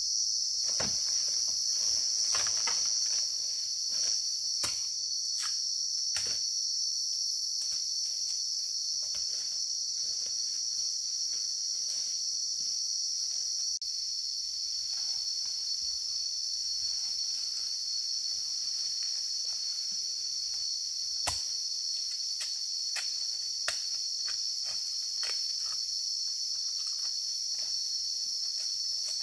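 Steady high-pitched drone of an insect chorus in the forest, with scattered sharp clicks and snaps from movement in the undergrowth.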